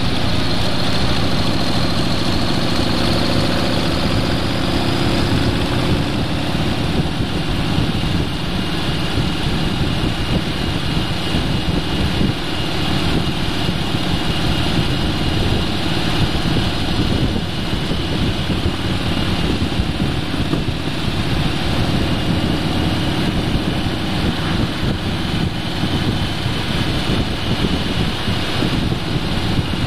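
Steady engine and road noise of a vehicle under way at cruising speed.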